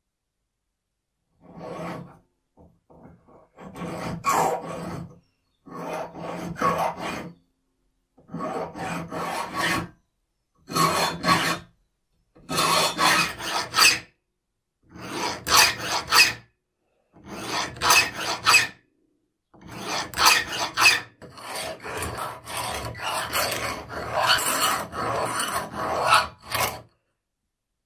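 A hand file rasping across the teeth of an old hand saw in short runs of quick strokes, with brief pauses between runs and a longer, nearly unbroken run near the end: the saw is being sharpened.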